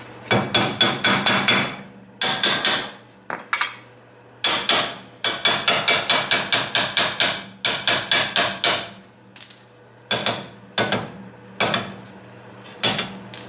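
Small sledgehammer striking the steel front hub and brake assembly of a Yugo, in quick runs of ringing blows, about five or six a second, broken by short pauses, with single blows near the end.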